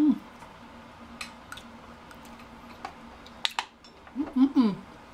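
Mukbang eating sounds: scattered wet mouth clicks and smacks while tasting seafood boil sauce. There is a short falling 'mm' right at the start and a wavering 'mmm' of enjoyment about four seconds in.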